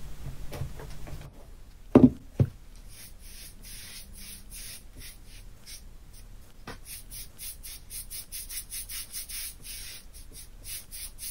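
A board is knocked down twice onto the work table. Then a wide brush sweeps gesso across the board in rapid, repeated scratchy strokes, several a second.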